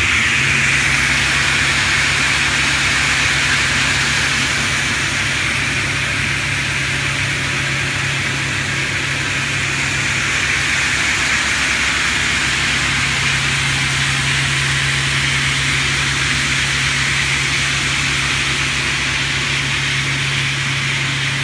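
Griggio C30 sliding-table panel saw running steadily: a low motor hum under an even, airy whir of the spinning blade, with no change in load.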